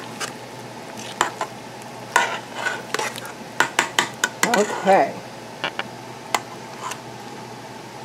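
Metal spoon stirring chopped tomatoes, onions and peppers in a stainless steel pot: wet mixing with irregular sharp clinks and scrapes of the spoon against the pot.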